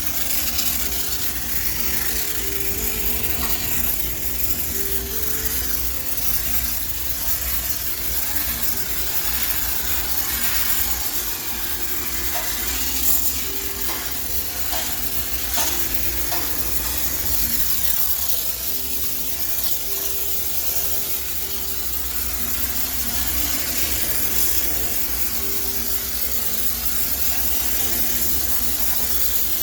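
High-pressure steam cleaner hissing steadily as it sprays steam to sterilize a laundromat washing machine, with a few faint clicks.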